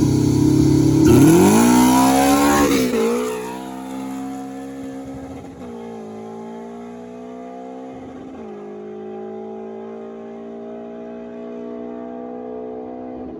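Car engine at full throttle accelerating hard in a race, its revs climbing and then dropping sharply at three upshifts, and growing fainter as it pulls away.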